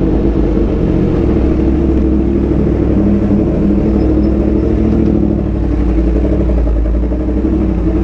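Yamaha R1M's crossplane inline-four engine running through an SC-Project exhaust under way, holding a fairly steady engine speed with no big revs.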